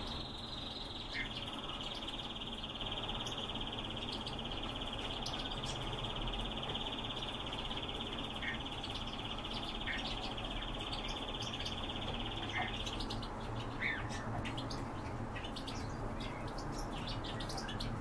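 Birds chirping: a steady high-pitched trill runs for about the first thirteen seconds and then stops, with short chirps scattered throughout that come more often after the trill ends.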